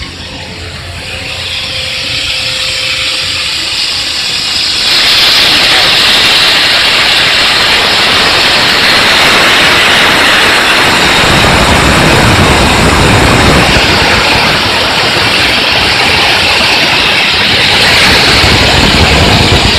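Wormald LOP AFFF foam-water suppression system discharging through its spray nozzles during a commissioning test, a loud steady hissing spray that grows much louder about five seconds in, with some low rumbling near the middle.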